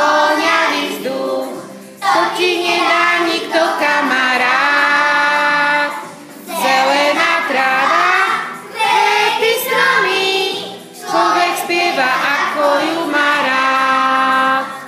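A class of young children singing a Slovak song together in unison, in several phrases with short breaks between them; the singing stops near the end.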